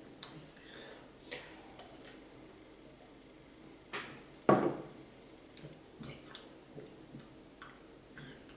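Light clicks and taps of a drinking glass being handled on a table, with one loud knock about four and a half seconds in as the glass meets the tabletop.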